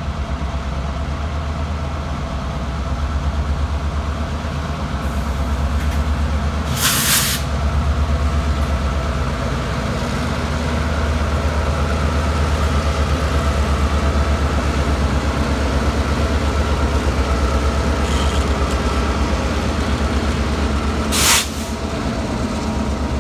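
BNSF diesel locomotives running past with a deep, steady, throbbing engine rumble. Two short bursts of hissing air break in, about seven seconds in and again near the end.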